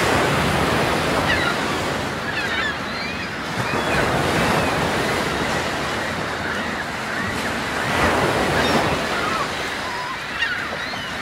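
Sea waves washing in swells about every four seconds, with a flock of seabirds calling over them in many short, high chirping cries.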